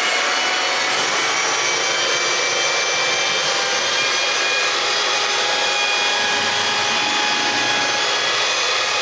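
Electric drill with a mixing paddle running at a steady speed with an even motor whine, churning a tub of clay plaster.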